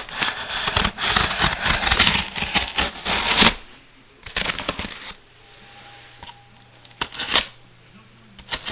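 A shipping box and its packaging being opened and handled by hand: dense rustling and scraping for the first three and a half seconds, then softer, scattered rustles and clicks.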